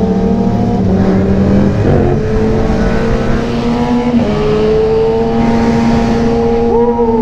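Yamaha YZF-R7's parallel-twin engine running at a steady cruise, heard from the rider's seat with wind noise over the microphone. The engine note steps up in pitch about four seconds in.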